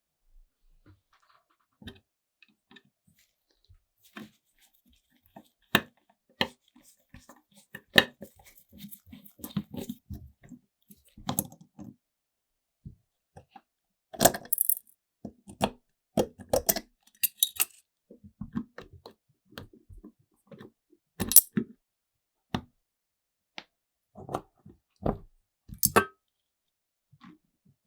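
Irregular clinks, taps and knocks of small metal parts and tools being handled on a workbench, a few of them ringing brightly around the middle.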